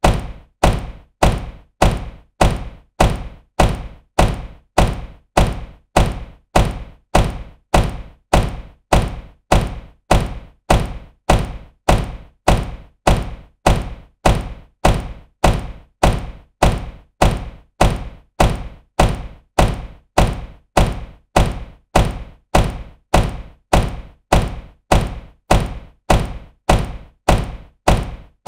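Car door slamming shut, the same slam repeated about twice a second: each a heavy thunk that dies away quickly.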